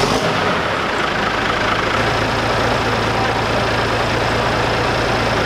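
Farmall tractor engine running just after being started, settling into a steady idle about two seconds in.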